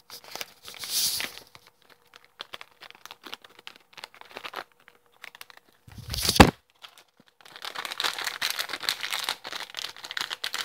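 Plastic snack bag crinkling and rustling in the hands, in scattered crackles and then a long dense stretch in the second half. About six seconds in, one loud thump of handling noise on the microphone.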